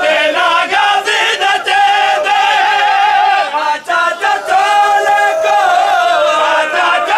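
A crowd of men chanting a noha, a Shia mourning lament, together in loud, sustained unison.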